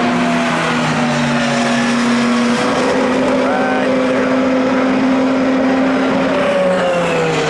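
IndyCar twin-turbo V6 engines running on the speedway, a steady drone whose pitch slides slowly as cars pass, with some notes falling away.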